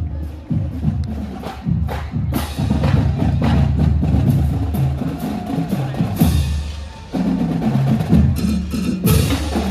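Marching band's drum line playing a street beat on snare and bass drums, with rim clicks and rolls.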